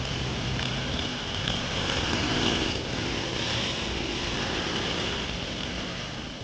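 Tractor engine and brush hog mower running steadily, a continuous machine drone with no sharp breaks.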